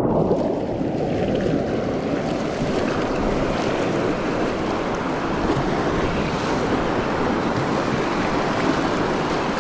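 River rapids rushing and churning around a kayak's hull: a steady, loud rush of whitewater, with wind buffeting the microphone.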